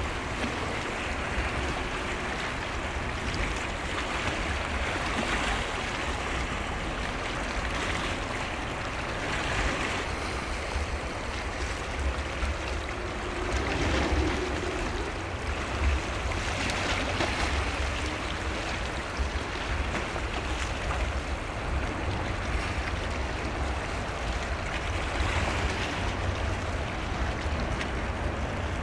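Strong wind buffeting the microphone as a restless low rumble, over a steady wash of waves.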